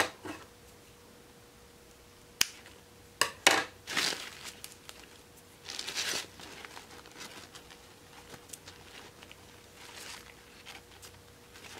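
Hands handling an Ever After High fashion doll: rustling of its netted cape and skirt fabric, with a few sharp clicks in the first few seconds.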